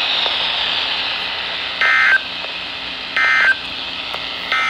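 Emergency Alert System end-of-message signal: three short bursts of SAME digital data tones, about a second and a half apart, over the steady hiss of a weather radio broadcast.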